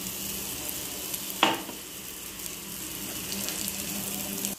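Oil sizzling under a ragi roti cooking on a hot tava, a steady hiss, with one sharp tap about one and a half seconds in.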